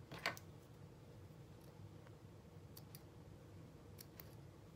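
Small thread snips clipping loose threads from satin fabric: one sharp snip about a quarter second in, then several faint clicks.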